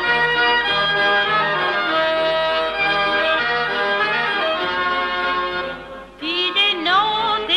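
Shkodran Albanian folk song: an accordion-led instrumental introduction with a steady low beat, then about six seconds in the music drops away briefly and the singer comes in with a strongly wavering, ornamented voice.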